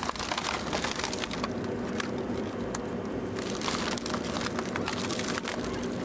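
High-capacity shredder chewing through a hardwood tree trunk, with dense crackling and sharp cracks of splintering wood over the steady hum of the machine.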